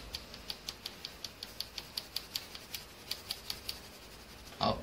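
Coloured pencil hatching on sketchbook paper: quick, even back-and-forth strokes, about six to seven scratches a second, stopping about four seconds in.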